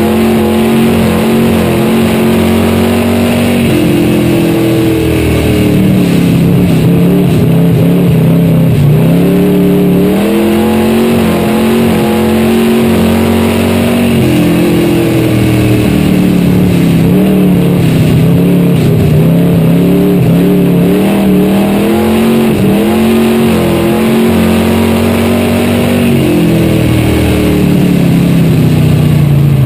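Dirt-track stock car's engine heard from inside the cockpit under race power. Its pitch is held high on the straights and drops three times, about every ten to eleven seconds, as it is eased for the turns, then climbs again under throttle.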